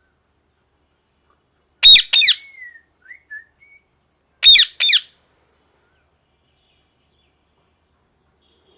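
Parrot giving two loud, shrill double screeches about two and a half seconds apart, with a few soft short whistles between them.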